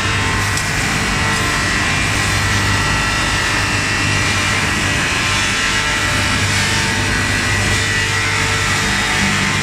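WEMA Conquest automatic wood-turning lathe running steadily, cutting a square wooden blank down to a round cylinder, with a constant low hum under a thin steady high tone.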